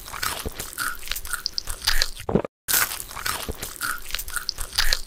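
ASMR crunching and chewing of crisp food: dense crackly bites in two runs, with a brief break about two and a half seconds in.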